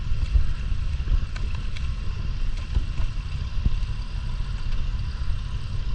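Boat motor running under way, a steady low rumble.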